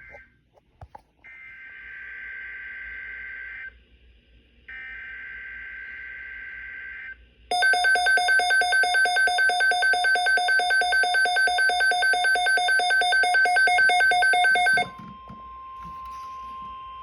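Emergency Alert System tones: two bursts of the SAME digital data header, then a loud, rapidly pulsing attention tone for about seven seconds, then a steady single lower tone, the NOAA Weather Radio warning tone.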